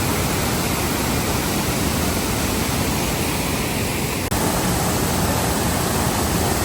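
Steady rushing wind noise on the microphone of a moving Can-Am Spyder RT three-wheeled motorcycle, with a single click and a brief dip about four seconds in.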